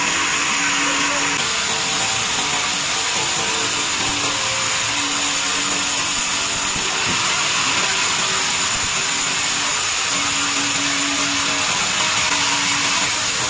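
Vertical band saw slicing lengthwise through a log on a moving carriage: a steady, high hiss of the blade cutting wood.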